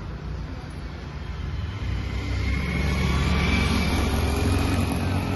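A low engine rumble that swells about two seconds in and holds, with a faint high whine above it, from a passing motor.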